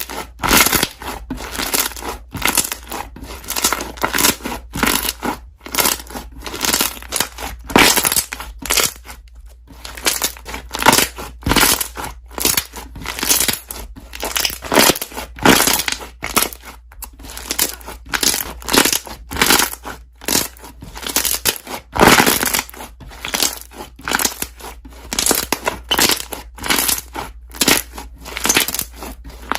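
Slime being pressed and squeezed, the air bubbles trapped in it popping in quick, irregular crackles.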